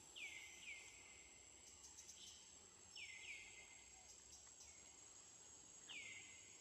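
Faint outdoor ambience: a steady high-pitched insect drone, with a bird giving short falling chirps, twice in quick pairs and once more near the end.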